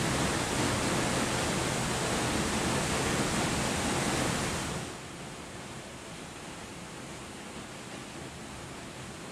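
Waterfall plunging onto rocks: a steady, even rush of falling water. A little under halfway through it drops suddenly to a softer, duller rush and stays there.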